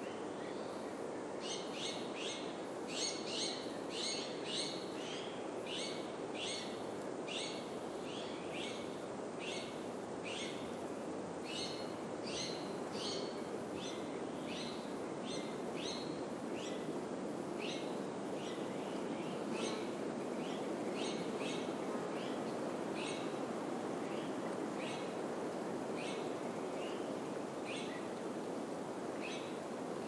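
Steady rush of wind through pine trees and grass, with a small bird's short, high chirps repeating about twice a second; the chirps thin out over the second half.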